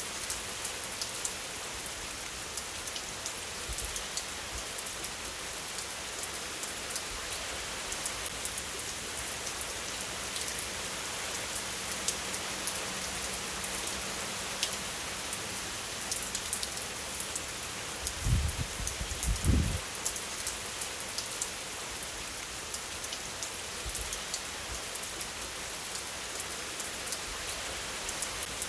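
Steady rain falling, a dense patter of drops over an even hiss. Two brief low thumps come a little past the middle.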